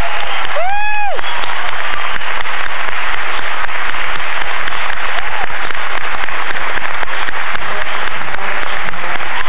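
Theatre audience applauding loudly, a dense crackle of many hands clapping, with one high whoop of a cheer about a second in.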